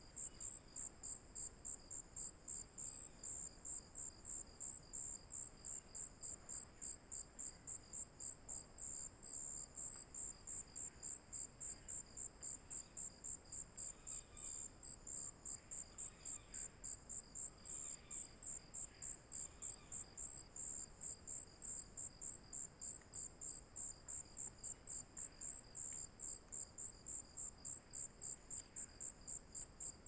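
An insect calling steadily: a high-pitched pulsing trill of about three pulses a second that never lets up.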